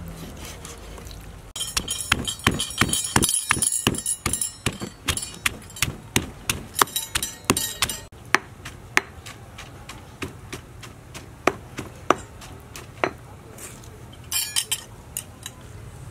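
Stone pestle pounding an herb paste in a stone mortar: a fast run of knocks, about three or four a second, then slower, scattered knocks.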